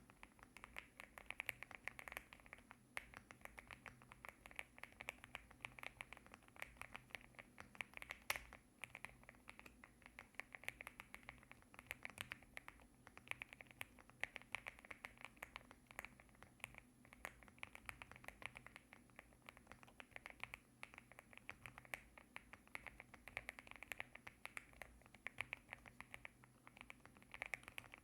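Typing on a LEOBOG A75 mechanical keyboard with linear Rambo switches: a fast, continuous stream of keystroke clacks in flurries with brief pauses.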